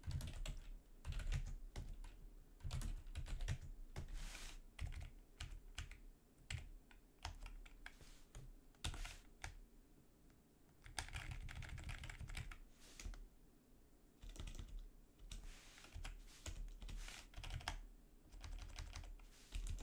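Computer keyboard being typed on in short irregular runs of clicking keystrokes, with brief pauses between runs.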